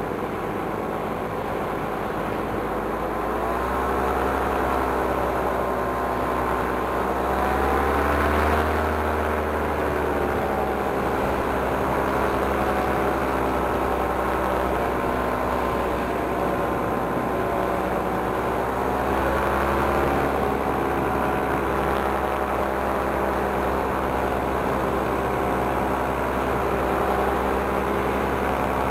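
Paramotor engine and propeller running steadily in flight, the revs rising and falling a few times.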